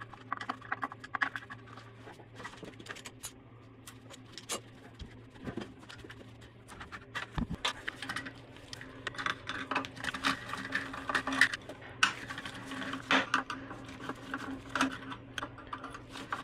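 Screwdriver working the terminal screws and wires in a milling machine's electrical control box: irregular small clicks, taps and scrapes of metal and plastic, busier in the second half, over a faint steady hum.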